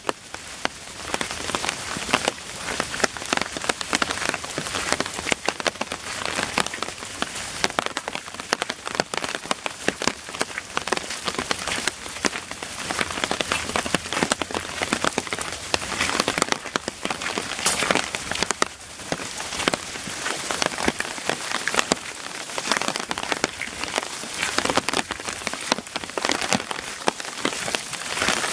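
Heavy rain falling steadily, a dense hiss with many sharp individual drop hits.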